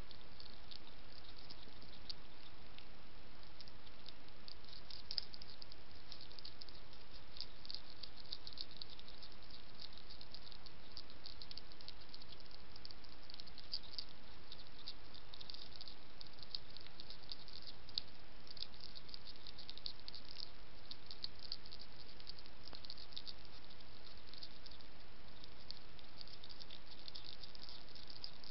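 European hedgehog chewing dry kitten-food biscuits: a rapid, irregular crunching crackle of chomping over a steady hiss.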